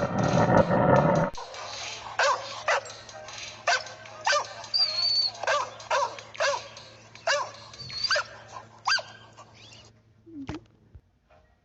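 A dog barking in a run of about a dozen short, sharp barks and yips spread over several seconds. A loud roar cuts off about a second in, just before the barking starts.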